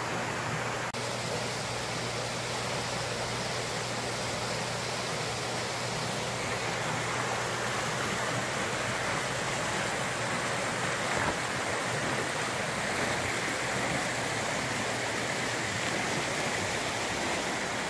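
Steady, even hiss of noise with a faint low hum beneath it, and a brief dropout about a second in.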